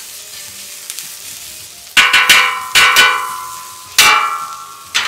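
Metal spatula clanging against the steel top of a flat-top griddle, each strike ringing: a quick run of about five strikes halfway in, then two single strikes near the end. Under it, chopped onions sizzle on the hot griddle.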